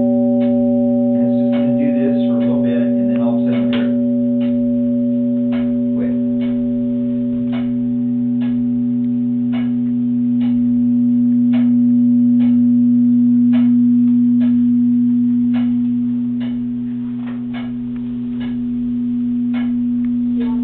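A deep chime ringing on with a steady tone and overtones, swelling and easing slightly, with sharp ticks repeating a little faster than once a second. Brief voices are heard in the first few seconds.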